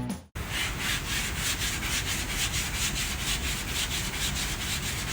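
Sanding by hand with quick back-and-forth strokes, about four a second, a steady rasping rub. It starts just as music fades out at the very beginning.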